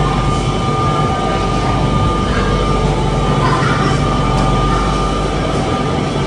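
Steady hum and hiss of refrigerated supermarket display cases and store air handling, with a faint steady whine above the hum.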